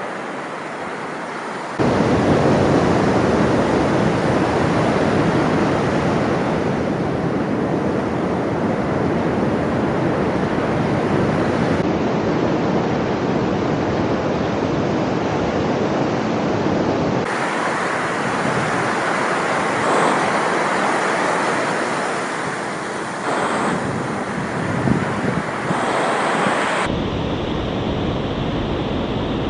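Wind rushing over 360-camera microphones on a moving motorcycle, a steady dense noise with road and engine sound underneath. The tone and loudness change abruptly several times as the recording switches between the Insta360 X3 and ONE X2.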